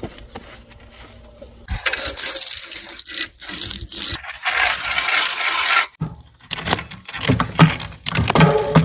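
Water spraying hard onto a bicycle as it is washed, starting about two seconds in and cutting off sharply about four seconds later. A run of clicks and knocks follows.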